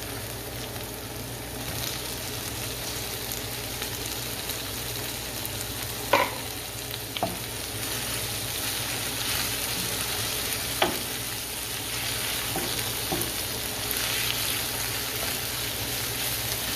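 Shrimp frying with garlic and vegetables in a hot pan: a steady sizzle that grows a little louder about two seconds in. A utensil stirring knocks against the pan a few times, loudest about six seconds in.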